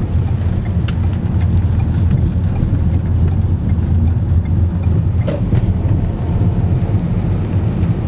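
Car driving, heard from inside the cabin: a steady low rumble of engine and road noise, with a couple of faint clicks.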